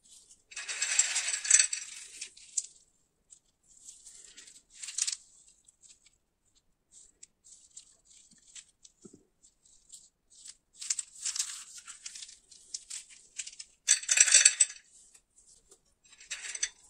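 Japanese-style coated peanuts rattling and clicking against each other and a glass plate as gloved hands scoop and handle them, in about five short bursts with quiet gaps between.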